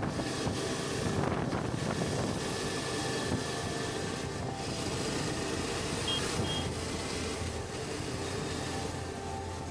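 Suzuki V-Strom 650's V-twin engine running steadily while the motorcycle cruises on the highway, mixed with wind rush, the whole sound muffled.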